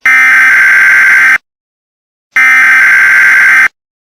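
Emergency Alert System SAME header: two buzzy digital data bursts of about 1.3 s each, a second apart. They are the last two of the three header repeats that open an alert.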